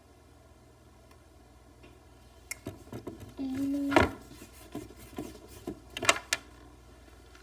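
Plastic toy pieces handled and pressed: scattered clicks and taps, a short steady tone about three and a half seconds in, and a sharp knock about four seconds in.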